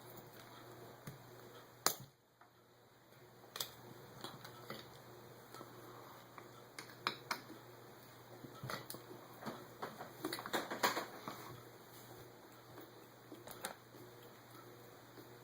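Scattered light clicks and taps of hand tools and small metal parts while a Holley carburetor is being taken apart, with a busier run of quick clicks about ten seconds in.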